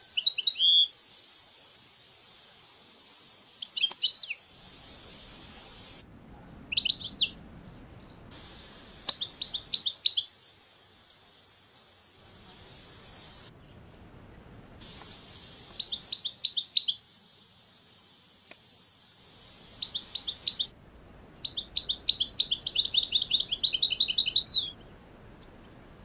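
European goldfinches calling: short bouts of quick, high twittering chirps, about seven in all, with the longest and fastest run near the end. A steady high hiss sits underneath and cuts out abruptly a few times.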